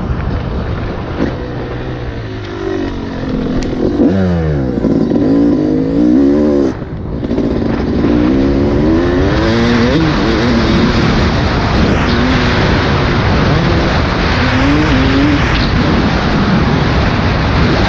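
Yamaha YZ250 two-stroke dirt bike engine being ridden, its pitch repeatedly rising and falling as the throttle is worked, over a steady rushing noise. The engine sound drops out briefly about seven seconds in.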